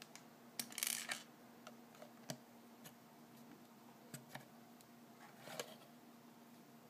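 LEGO plastic pieces clicking and rubbing as they are handled and pressed onto a small brick-built Batmobile: a short rattling scrape about a second in, scattered light clicks after it, and another short scrape past the five-second mark.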